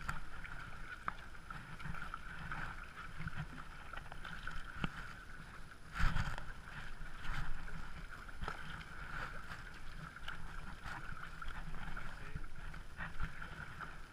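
Double-bladed kayak paddle strokes: blades dipping and pulling through the water in an irregular rhythm, with water slapping against a plastic kayak hull. A louder thump about six seconds in.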